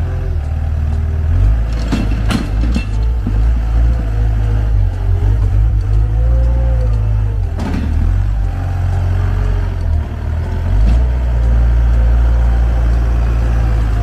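Komatsu wheel loader's diesel engine running as the loader drives and turns on the yard, its engine note rising and falling. A few sharp clatters come about two seconds in and again near the middle.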